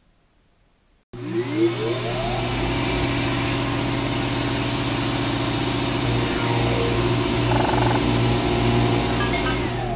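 An electric motor starts about a second in, spins up with a rising whine, runs steadily with a hum, and begins winding down with falling tones near the end.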